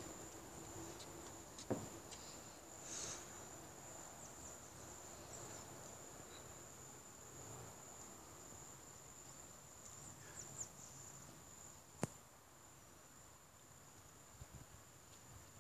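Faint steady high-pitched insect drone, with a couple of sharp clicks, one near the start and one past the middle.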